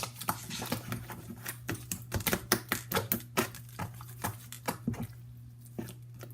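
Homemade borax slime pressed and worked with the fingertips, making a quick, irregular run of small clicks and pops, several a second, that thin out near the end.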